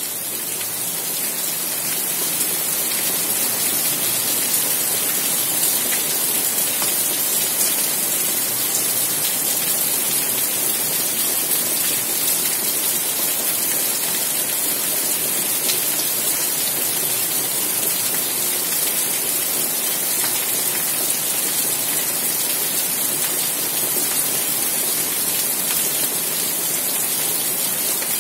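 Steady rain falling on the leaves of potted plants and a balcony floor: an even, dense hiss of many drops, with no break.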